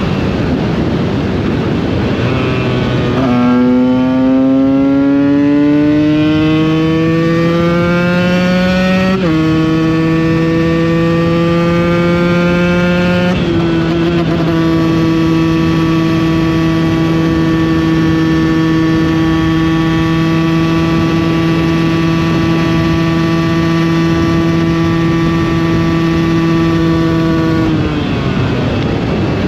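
KTM 125 EXC two-stroke engine pulling hard: its pitch climbs, drops at an upshift about a third of the way in, climbs again and drops at a second shift, then holds steady at cruising revs until the throttle is closed near the end. Wind rush runs underneath.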